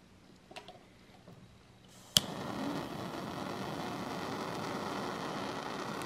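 Soda-can-shaped butane jet torch lighter: after a faint click or two, a sharp ignition click about two seconds in, then the steady hiss of the lit jet flame.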